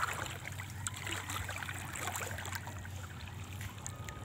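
Gentle water lapping and trickling, with small ticks over a low, steady hum.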